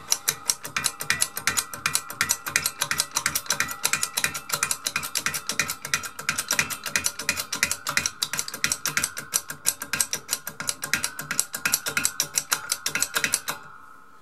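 Ratchet clicking quickly and evenly, about five clicks a second, while the press is worked to push out the crankshaft bushing; it stops suddenly near the end.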